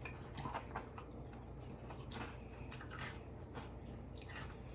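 Quiet room tone with a low steady hum and a few faint scattered clicks.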